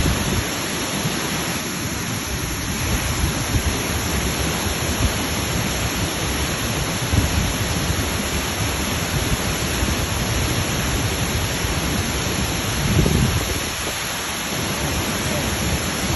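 Waterfall: a loud, steady rush of falling water with a deep rumble underneath, swelling briefly about thirteen seconds in.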